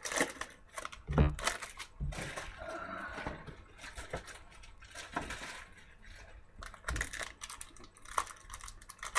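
Trading-card packs and cards being handled: irregular clicks and taps, with a stretch of crinkling and tearing of pack wrappers in the middle.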